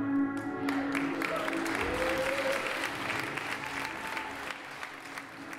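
Audience applauding at the end of a live band song, the clapping starting about a second in, while the band's last held low note rings on underneath.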